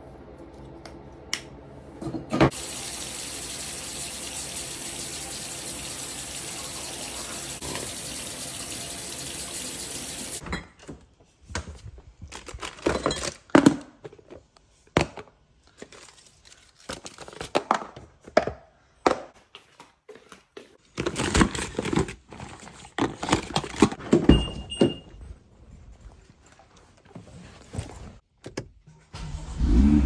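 Bathroom sink tap running steadily for about eight seconds, then a string of sharp clicks, knocks and rustles as food is handled out of a fridge drawer.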